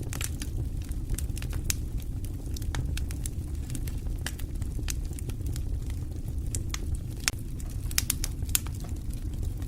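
Wood fire burning in a fireplace: a steady low rumble of flames with irregular sharp crackles and pops from the burning logs, a few louder pops near the end.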